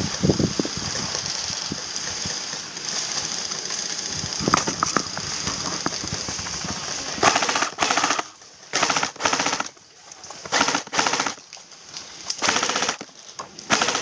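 Airsoft electric gun firing full-auto in short bursts, about six of them, each under a second, starting about halfway through. A steady hiss comes before the bursts.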